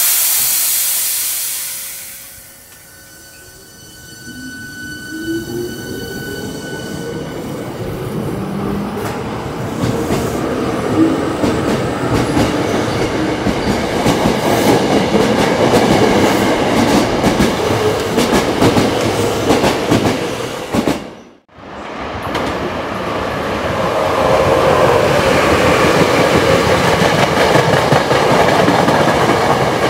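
Hankyu electric train at a station: a sharp hiss of air at the start, then the train's running noise builds with a rising motor whine as it gathers speed and grows loud. The sound cuts out sharply about 21 seconds in and comes back loud, with a train running again.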